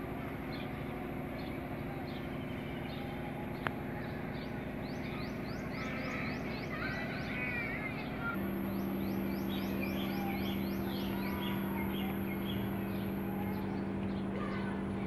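Birds chirping, with short rising calls repeated several times a second and a brief warble, over a steady low machine hum that grows stronger about eight seconds in.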